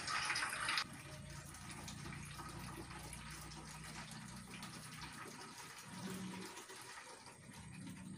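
Water running from a tap into a bucket as it fills. A loud rush drops sharply under a second in, then runs on more quietly and steadily.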